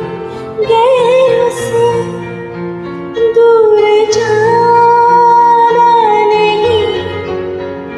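A woman singing a Hindi film ballad in long, wavering held notes over a karaoke backing track.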